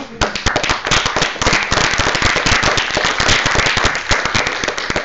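Audience applauding: many hands clapping in a dense patter that swells in the first second or so and dies away near the end.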